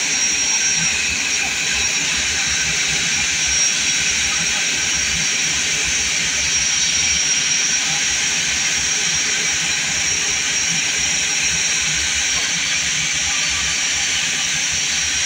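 Airbus A320 jet engines running during pushback: a steady high whine and hiss over the low rumble of the towing tractor's engine.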